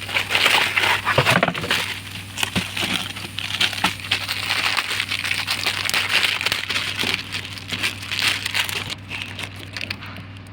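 Packaging of a new cabin air filter being opened and handled, a dense run of crinkling and small crackles that eases off about nine seconds in.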